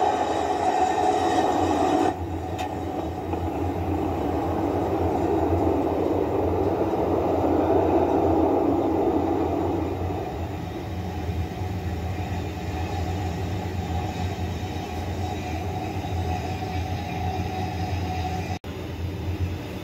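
Starship SN15's Raptor rocket engines during the landing burn and touchdown: a steady rumbling roar that drops suddenly about two seconds in and eases off after about ten seconds, over a steady low hum.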